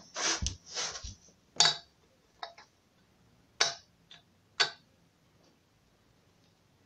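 A series of short, sharp taps and knocks, irregular and about one a second, from objects being handled; they stop after about five seconds.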